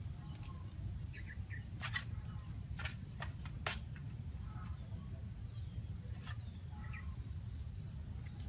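Birds chirping faintly over a steady low rumble of outdoor ambience, with a few sharp cracks from a small fire of dry twigs being stirred.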